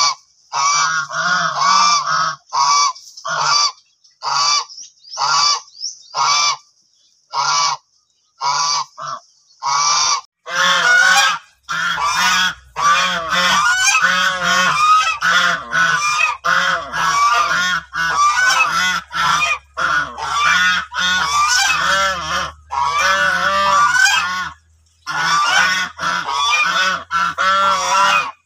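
White domestic geese honking loudly. At first single honks come about a second apart. From about ten seconds in, several geese honk over one another almost without a break, with one short pause near the end.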